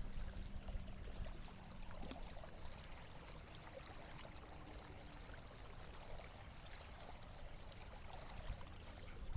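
Faint, steady water trickling and lapping around a kayak on the water.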